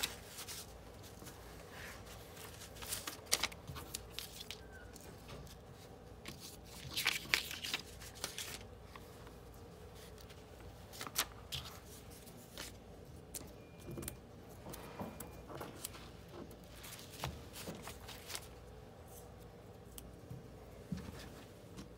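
Faint, intermittent rustling of paper-backed fusible cut-outs and cotton fabric being picked up and laid down on a cutting mat, with a few light taps and scrapes.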